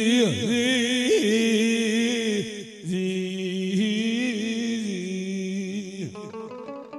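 A singer's voice holding long, wavering notes in a devotional chant, in two phrases: the first breaks off about two and a half seconds in, and the second runs from about three seconds to six.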